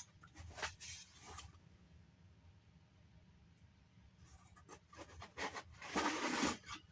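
Packaging rustling and scraping as hands rummage through an opened parcel looking for a note. It comes in short bouts, with a quiet stretch in the middle and the loudest rustle near the end.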